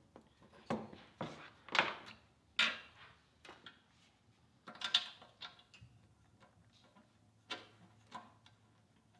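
Faint, irregular clicks and light knocks of hands and metal fittings at a small engine's cylinder head as the leak-down tester hose is being fitted, some with a brief metallic ring.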